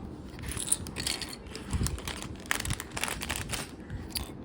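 Plastic Lego bricks being handled and rummaged, with a run of irregular small clicks and rattles.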